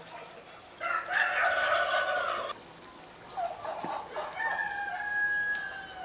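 Rooster crowing twice, two long crows, the second ending in a held steady note.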